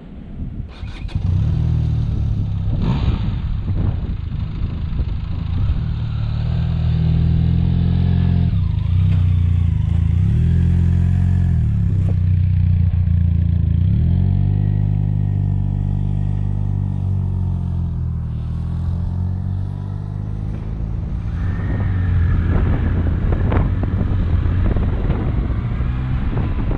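Benelli motorcycle engine running while riding, its pitch dipping and recovering a couple of times.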